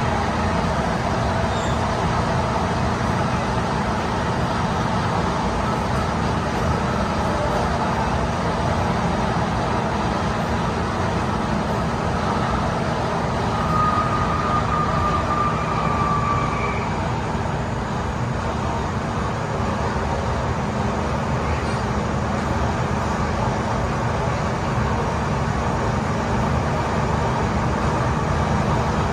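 Inside an MTR M-Train (Metro-Cammell electric multiple unit) running through a tunnel: steady rumble of wheels and running gear on the rails. A faint high whistle comes in briefly about halfway.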